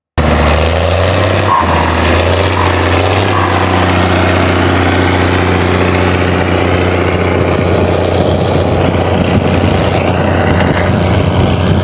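Ursus 1614's turbocharged diesel tractor engine running steadily.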